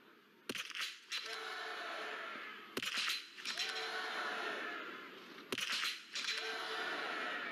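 Three biathlon .22 rifle shots about two and a half seconds apart, each a sharp crack with mechanical clicks. After each shot comes a rising cheer from spectators.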